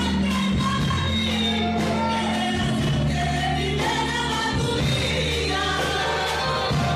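Worship music sung by a group of voices over a band, with steady bass notes and a regular drum beat.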